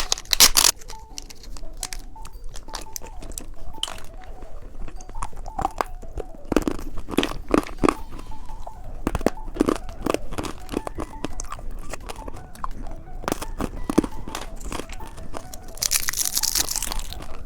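Close-miked eating of a candy cheese stick: repeated bites and chewing with crunchy snaps at an irregular pace. There is a brief burst of rustling noise near the end.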